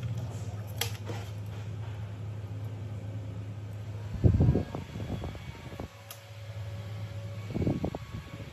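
12 V DC cooling fan running with a steady low hum. Two loud low rumbles, about four seconds in and again near the end, come as the running fan is handled close to the microphone.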